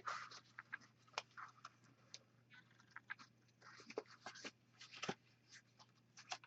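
Faint handling noise from a small zippered carrying case and its lanyard being handled: scattered light clicks, scratches and rustles.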